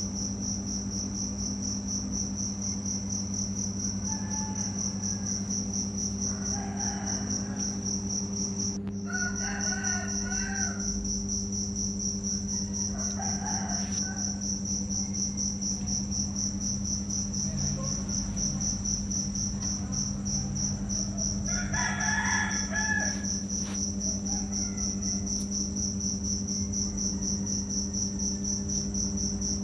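A steady high-pitched, pulsing insect trill like a cricket runs over a low steady hum. A few short calls break in, the strongest about 22 seconds in.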